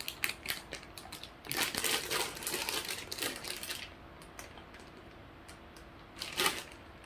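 Plastic snack wrapper crinkling in the hands as it is handled, in quick crackles that are busiest over the first four seconds, with one more short rustle near the end.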